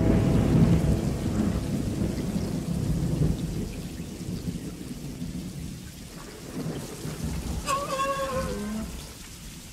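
Steady rain falling on a swamp, with a heavy rumble of thunder in the first three seconds or so that fades into the hiss. Near the end, a short wavering whistle from the R2-D2 droid.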